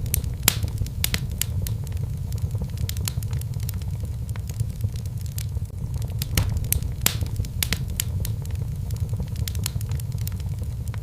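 Wood fire crackling in a fireplace: frequent irregular pops and snaps over a steady low rumble.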